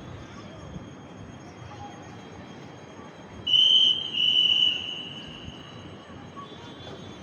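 A bird calls with two loud, clear whistled notes about halfway through: a short one, then a longer, slightly lower note that falls a little as it fades. Under it is a steady low background hiss.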